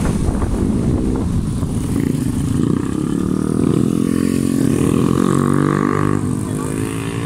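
Motorcycle engine running at road speed, its pitch rising and falling gently with the throttle, with rushing wind noise in the first second or so.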